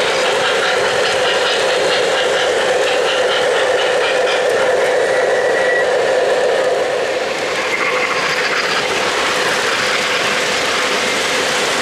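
O-gauge three-rail model trains running over the track: the steady mechanical running of locomotive motors and wheels on the rails.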